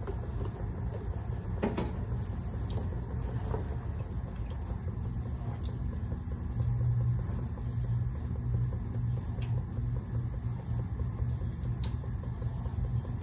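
A steady low hum with a few light clicks and taps of a spoon against a stainless-steel stockpot as soup is stirred.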